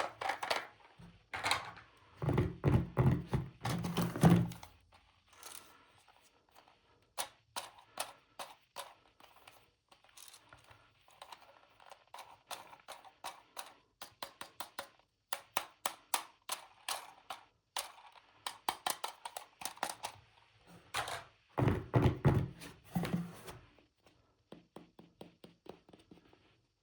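Toy pieces and packaging being handled and set down: a run of light clicks and taps, with two stretches of heavier knocking and thunking, one a couple of seconds in and one later on.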